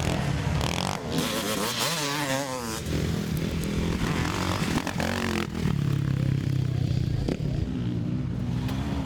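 Motocross motorcycle engines revving, the pitch rising and falling again and again as the throttle opens and closes.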